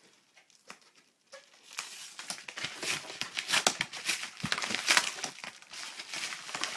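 Packaging being opened by hand: crinkling and tearing with dense crackles and sharp clicks, starting about a second and a half in.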